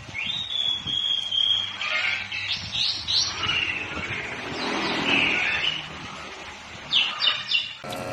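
A pet parrot whistling and chirping: one long high whistle, then quick rising chirps and shorter whistles, with another burst of chirps near the end.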